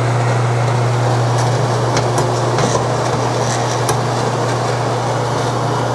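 NuTone bathroom exhaust fan running on its newly installed replacement motor and blower wheel: a steady low motor hum under a constant rush of air.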